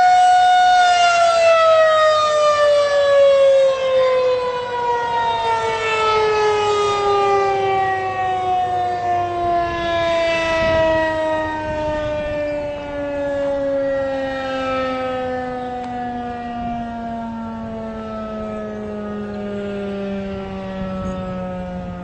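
Federal Signal 2001-SRN outdoor warning siren winding down at the end of its test. It holds a steady tone for about a second, then the pitch slides slowly and evenly lower as the rotor coasts to a stop, growing gradually quieter.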